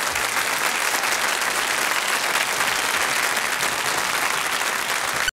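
Studio audience applauding: dense, steady clapping that cuts off suddenly near the end.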